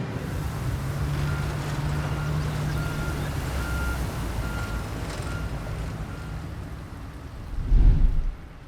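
Construction vehicle's reversing alarm beeping about eight times in a steady single tone, over the low hum of its diesel engine. Near the end comes a loud low rumble.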